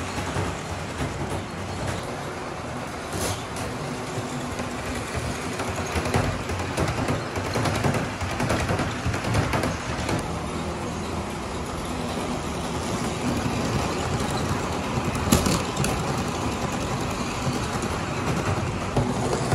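Miniature model train running on a layout track: a steady motor whir with wheels rattling and ticking over the rails.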